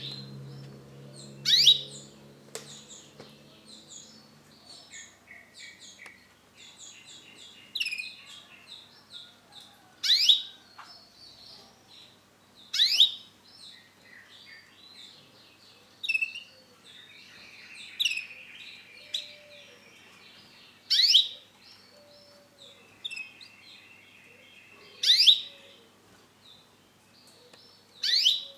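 Male canary calling and singing: loud, sharp notes falling in pitch, repeated every two to three seconds, with softer twittering trills between them. A low hum fades out in the first few seconds.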